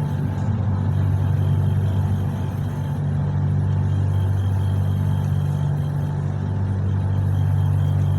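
Steady low drone of motor vehicle engines, unchanging throughout.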